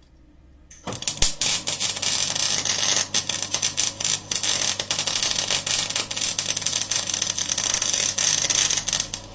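MIG welding arc from a Cebora Snap-MIG welder, struck about a second in and crackling steadily with dense sputtering clicks over a low hum, then cut off just before the end.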